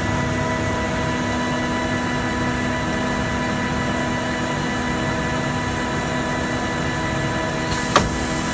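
Edgebanding machine running steadily with a constant motor hum. Near the end a higher hiss comes in, followed by a single sharp click.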